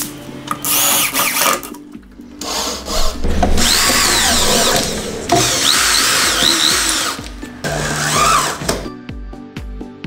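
Cordless drill running in several long bursts, its pitch wavering, as it drives into the sheet-metal base of an old fridge to fix caster wheels. Background music with a steady beat comes to the fore near the end.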